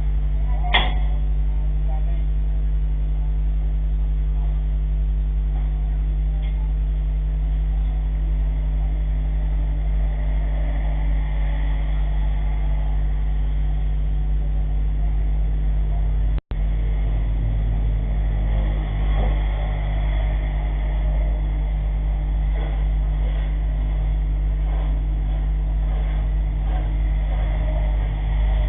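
An engine running steadily at an even speed, a constant low drone, with a brief break about sixteen seconds in.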